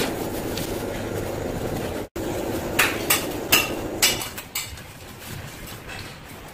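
Sharp clicks and knocks from hands handling the stripped HT cable cores and their insulation, four of them close together between about three and four seconds in, over a steady background noise that cuts out for an instant about two seconds in and drops away about four seconds in.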